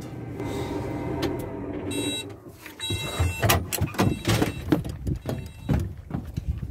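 Case IH tractor engine running, heard from inside the cab, with a short electronic beep about two seconds in. Then a run of knocks and clunks from the cab door and steps as someone gets out of the cab.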